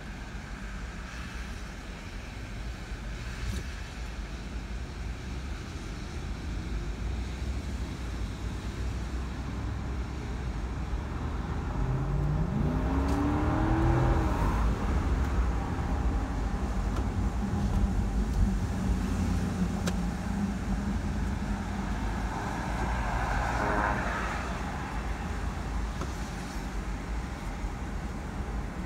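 Car driving on a wet road, heard from inside the cabin: steady low engine and tyre rumble, with an engine rising in pitch as the car speeds up about twelve seconds in.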